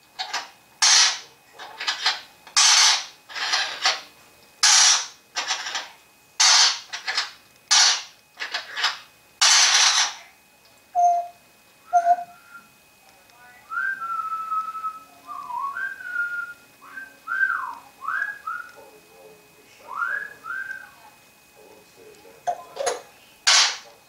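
African grey parrot giving a rapid run of short, hiss-like bursts, about one to two a second. Then it whistles a string of short notes that swoop up and down, with one more hiss near the end.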